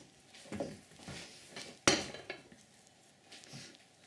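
Kitchen handling noises as a covered dish is moved about: a few soft knocks and one sharp click about two seconds in.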